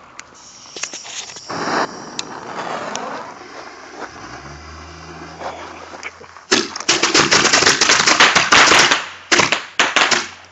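A batch of bottle rockets going off: a hiss about a second and a half in, then from about six and a half seconds a rapid run of sharp pops and bangs lasting about three seconds, followed by a few separate bangs near the end.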